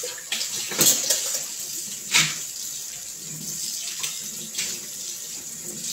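Kitchen tap running steadily into a stainless steel sink while dishes are rinsed, with a few sharp clinks of dishes and cutlery, the loudest about one and two seconds in.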